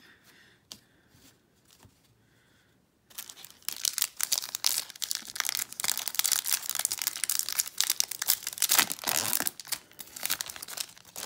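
Foil wrapper of a Topps Series 1 baseball card pack crinkling and tearing as it is ripped open by hand, a dense crackle that starts suddenly about three seconds in. It follows a few faint clicks of cards being handled.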